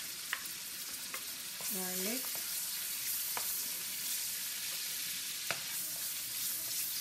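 Diced onions frying in a wok with a steady sizzle as a wooden spoon stirs them, with a few light knocks of the spoon against the pan.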